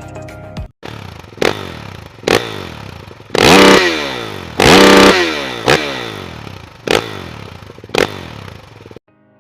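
Dirt bike engine being revved: a series of sharp throttle blips with two longer, loud revs near the middle, the revs falling away after each one.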